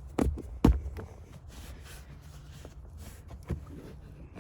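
Two dull thumps about half a second apart, then faint rustling: hands pressing and handling a molded rubber floor liner in a truck's footwell.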